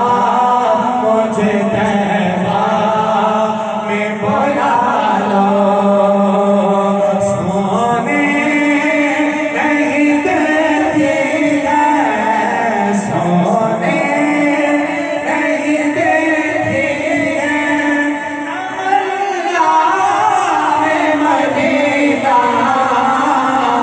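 Voices singing an Urdu devotional naat together, with long held notes in a chant-like melody.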